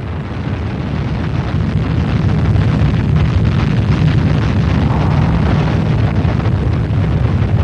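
Saturn V rocket's five first-stage F-1 engines at liftoff: a deep, crackling rumble that swells over the first couple of seconds, then holds steady and loud.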